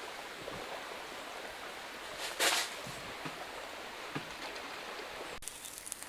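Steady outdoor ambient noise, an even hiss, with one short rustling burst about two and a half seconds in.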